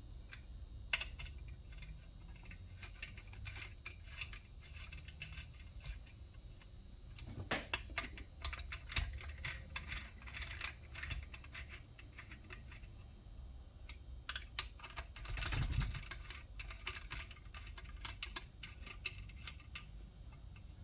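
Irregular light clicks and taps of hand tools on metal as bolts are tightened down, with a sharper click about a second in and busier bursts of clicking about eight seconds and fifteen seconds in.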